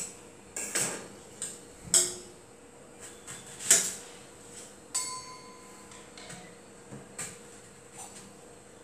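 Scattered knocks and clinks of stainless-steel kitchen vessels and utensils as raw mango is handled and cut at the counter. One clink about five seconds in leaves a short metallic ring.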